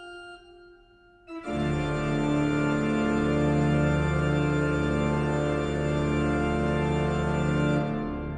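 Organ music: a soft held chord, then about a second in a loud full chord enters and is held steady, fading near the end.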